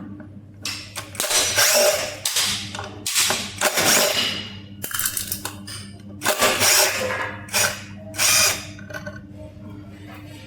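Tool work on an electric bike: a run of short, loud bursts, like a power screwdriver or ratchet working screws loose, over a steady low hum.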